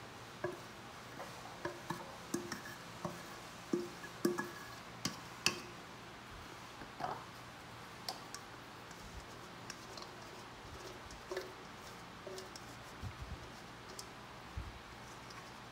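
Metal measuring cup clinking and scraping against a stainless steel mixing bowl while cornbread batter is scooped out into small metal loaf pans. The taps are light and irregular, some with a short ring.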